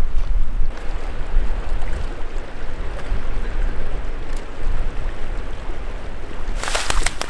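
Wind buffeting the microphone over a steady rush of water; a little before the end, a hooked sockeye salmon thrashes in the shallows, making a loud burst of splashing.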